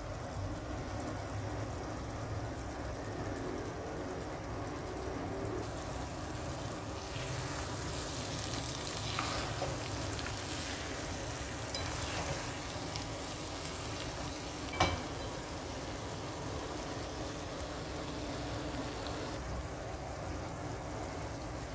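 Minced beef and diced potato curry puff filling sizzling in a non-stick frying pan, with a spatula stirring and scraping through it from about a third of the way in. One sharp knock about two-thirds through.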